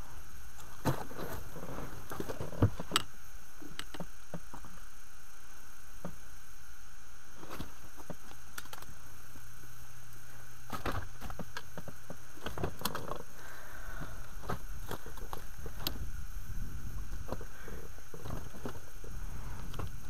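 Scattered knocks and clicks of a landing net and caught fish being handled in an inflatable PVC boat, over a steady background hiss and low hum.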